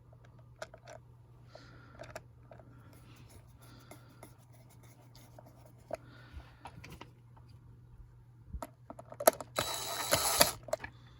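Fan housing parts being handled and fitted together by hand: scattered light clicks and taps, then loud scraping and rubbing from about nine seconds in as the pieces are pushed into place.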